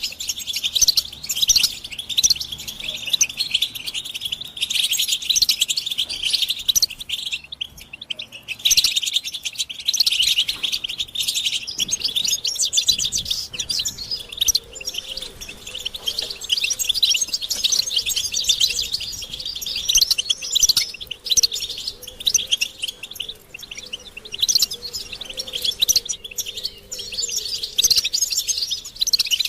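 European goldfinches chattering and twittering in a dense, rapid stream of high calls: the group mating and readiness calls used to rouse males to sing. The calls thin out briefly about seven seconds in.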